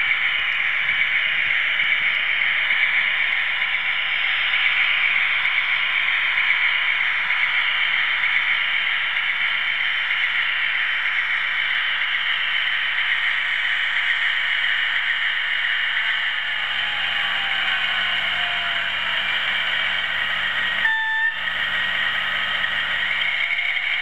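OO-gauge model train with a camera wagon running along the track: a steady whir of motor and wheels on rail. A short whistle toot comes near the end.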